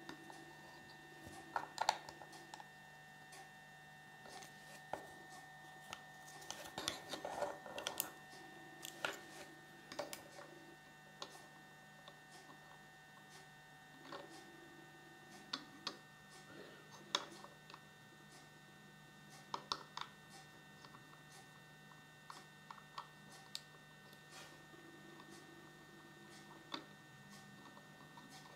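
Small plastic toy figures clicking and tapping at irregular moments as they are handled and set down on a wooden tabletop, over a steady electrical hum.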